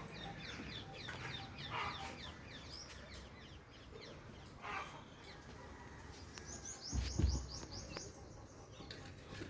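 Small birds chirping: many short, falling chirps, then a quick run of high chirps about six and a half seconds in. A dull low thump about seven seconds in is the loudest sound.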